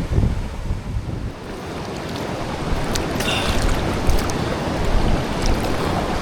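Rushing creek water, with wind buffeting the microphone during the first second or so. From about three seconds in there are a few short, sharp sounds over the water.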